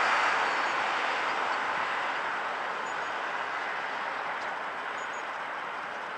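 Train hauled by the Ol49 steam locomotive rolling away into the distance: a steady rushing noise that slowly fades.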